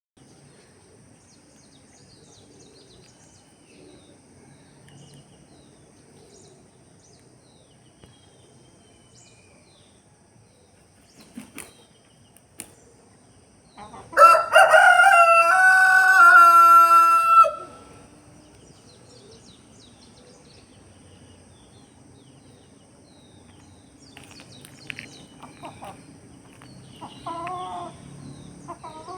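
A rooster crows once, midway, one long call of about three and a half seconds. A few faint bird chirps are heard, and there is a short, quieter call near the end.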